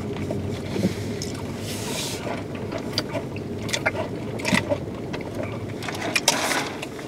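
Steady low hum inside a car's cabin, with scattered short clicks and rustles of a paper drink cup, straw and food packaging being handled.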